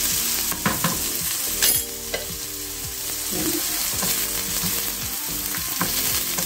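Diced red onion sizzling in hot oil in a frying pan over high heat, stirred with a wooden spoon that knocks and scrapes against the pan now and then.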